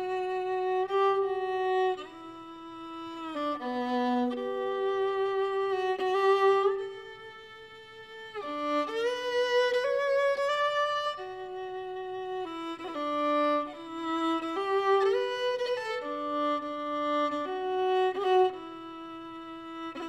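Background music: a solo violin melody, moving note by note with slides between some notes and vibrato on the held ones.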